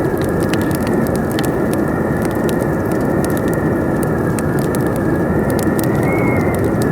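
Wood fire crackling with frequent sharp pops over a steady rushing wind that carries a faint whistling howl.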